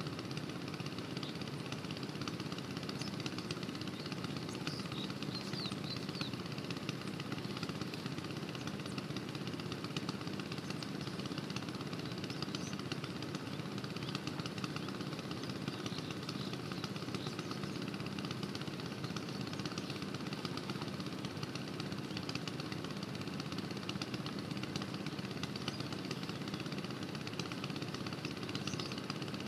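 Kirloskar 5 hp single-cylinder diesel pumpset engine running steadily with an even, rapid chugging.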